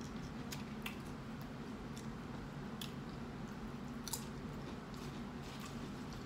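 Close-up chewing and crunching of tortilla chips: a scatter of short, sharp crunches over a steady low hum.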